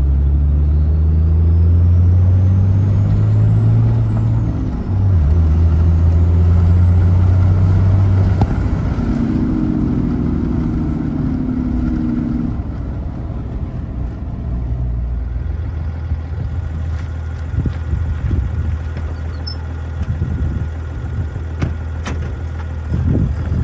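Ram 3500's 6.7 L Cummins turbo-diesel heard from inside the cab, a loud low drone while slowing with the exhaust brake holding the revs up, with a faint high turbo whistle gliding upward. About nine seconds in it drops to a quieter, lower running as the revs fall.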